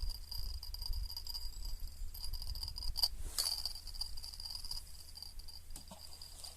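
An insect trilling steadily at a high pitch, with a low rumble underneath and a single sharp click about three seconds in.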